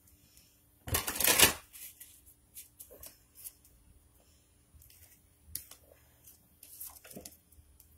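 Oracle cards being shuffled: a loud burst of shuffling about a second in, lasting about half a second, followed by scattered light taps and rustles as the cards are handled and one is drawn.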